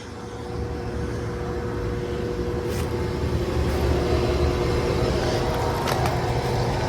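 Large commercial air-conditioning condensing unit running: a steady hum with two fixed tones over a low fan rumble, growing louder in the first second. The filmer judges that it has a bad run capacitor.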